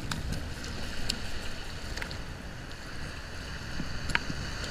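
Wind rumbling on the microphone over the wash of small surf on the beach, with a few short sharp ticks.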